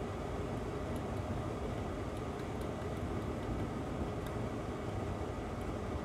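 Steady, even rushing noise of moving air, like a fan running, with a few faint high ticks scattered through it.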